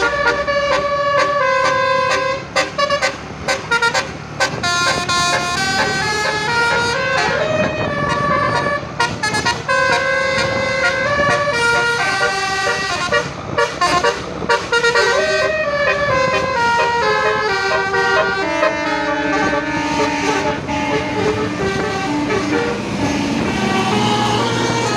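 Indonesian 'telolet' Basuri multi-tone bus air horn playing melodies: a fast run of stepped notes, several horn tones sounding together, one tune linked straight into the next. Lower notes come in for the last few seconds.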